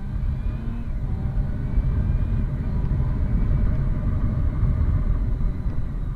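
Motorcycle engine running as the bike rides along, under a heavy, uneven low rumble that gets louder at the start and stays up.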